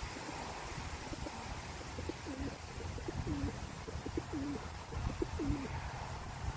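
Pigeon cooing: four or five short coos, each dropping in pitch, starting about two seconds in.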